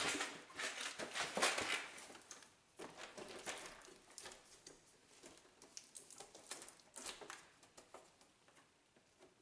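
Hand tools and the plastic trays of a socket tool kit being handled and packed into their case, with scattered clicks and rattles, busiest in the first two seconds.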